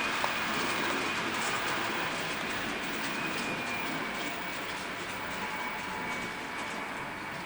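Model trains running on a layout: a steady rolling rattle of wheels on track with a faint high steady tone, slowly getting a little quieter.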